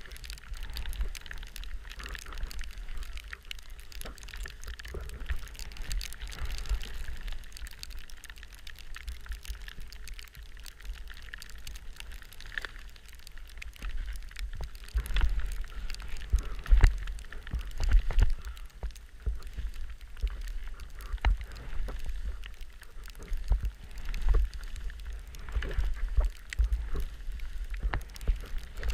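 Skis hissing and scraping over snow on a downhill run, with wind buffeting the microphone in a low rumble and scattered knocks. It gets louder and choppier about halfway through.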